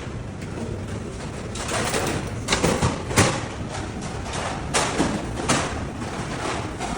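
Dishes and utensils knocking and clinking, a handful of sharp strokes in the middle of the stretch, over steady restaurant background noise.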